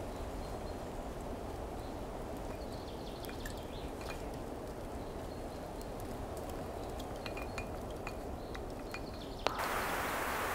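Steady low outdoor rumble with faint scattered clicks and a few short high chirps; about nine and a half seconds in, a loud hiss of walkie-talkie static cuts in suddenly and holds.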